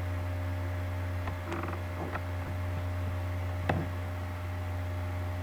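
Steady low electrical mains hum from the live circuit, with a few faint clicks; the sharpest click comes about three and a half seconds in.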